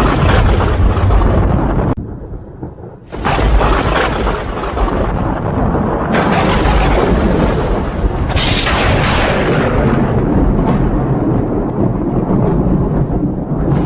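Thunder rumbling loudly, dropping briefly about two seconds in, then a sudden new crash and a long rumble that carries on.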